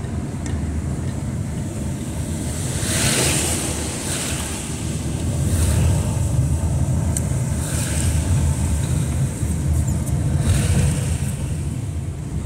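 Car driving on a wet road, heard from inside the cabin: a steady low engine and road rumble, with several brief hissing swishes of tyres through water on the pavement.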